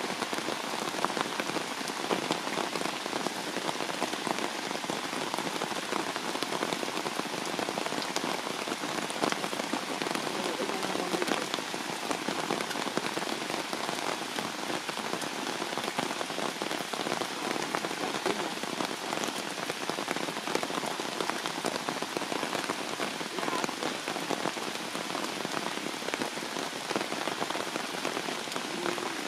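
Heavy rain falling steadily: a dense, even patter of drops.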